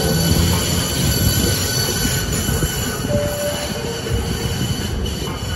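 CAF-built Type 9 Green Line light-rail train running on street-median tracks, its wheels giving a steady high-pitched squeal over a low rumble.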